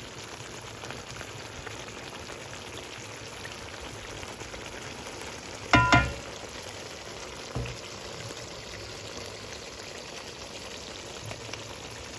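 Thick chicken jalfrezi curry sizzling and bubbling steadily in a pan as its masala cooks down in oil near the end of cooking. A single sharp clank about halfway through, with a softer knock about two seconds later.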